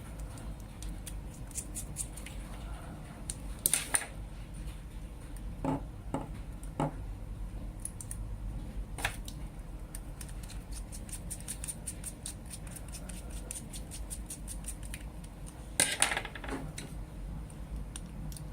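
Parts of a metal lightsaber hilt being handled and taken apart: scattered clicks and scrapes, a run of quick faint ticks in the middle, and two sharper knocks, about four seconds in and near the end, over a low steady hum.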